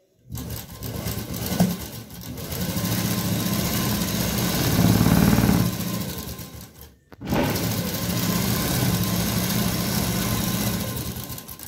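Sewing machine running as it stitches a seam along lace trim on satin fabric. It runs in two spells with a short stop about seven seconds in.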